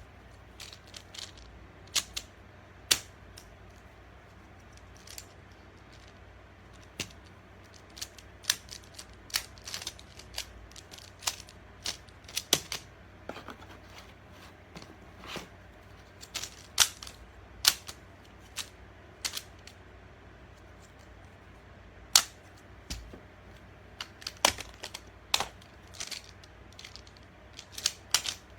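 Plastic magnetic building tiles clicking against each other as they are handled and snapped together: irregular sharp clicks, about one or two a second, some much louder than others.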